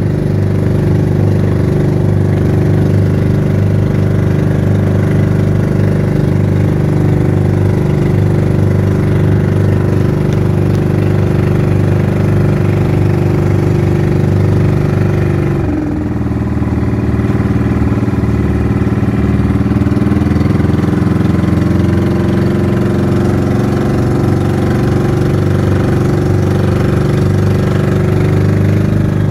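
Inboard engine of a motorized outrigger boat running steadily while underway, with a brief dip and a slight change in pitch about halfway through.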